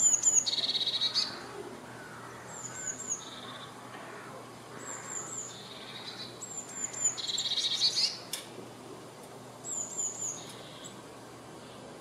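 Eurasian blue tit singing: repeated phrases of two or three high, thin notes followed by a lower, fast trill, a phrase every two or three seconds.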